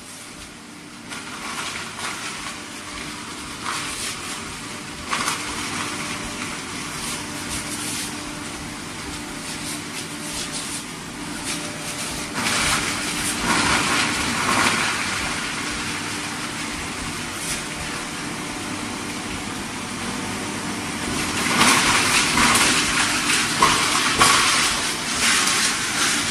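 ESF007B foam shredder and its blower fan running while foam is fed by hand into the hopper: a steady motor hum under a rushing shredding noise. The shredding grows louder about halfway through and again near the end as more foam goes in.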